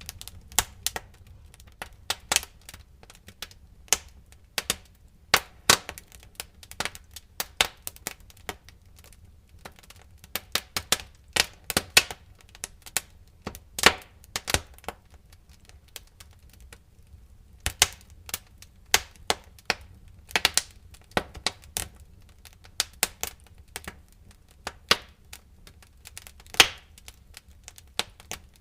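Wood fire crackling in a fireplace: irregular sharp pops and snaps, several a second, over a low steady rumble, with a short lull a little past the middle.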